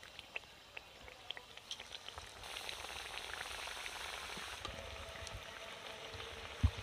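Singaras (samosas) deep-frying in moderately hot oil in a karahi: scattered crackles at first, building to a steady sizzle from about two seconds in as the pastries go into the oil. A single knock near the end.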